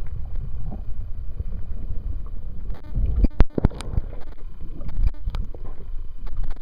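Muffled underwater water noise on a submerged camera, a steady low rumble of water moving around the housing. A few sharp knocks come just past the middle, with a couple more a little later.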